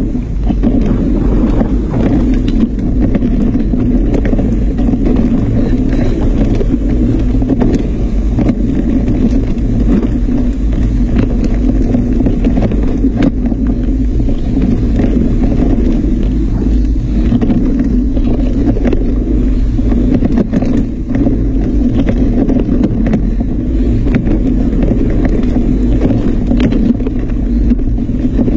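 Mountain bike ride on a rough dirt trail heard from a camera on the bike or rider: a loud, steady rumble of wind and tyres on the microphone, with frequent rattles and knocks as the bike bounces over roots and rocks.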